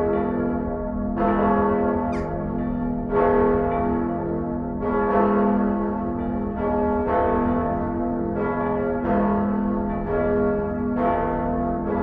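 Church bells ringing, with a new strike about once a second, each overlapping the long ringing hum of the ones before.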